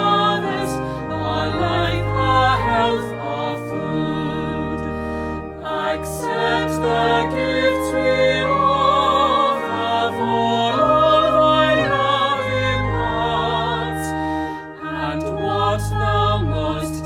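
A choir singing, with held notes over sustained low accompanying notes.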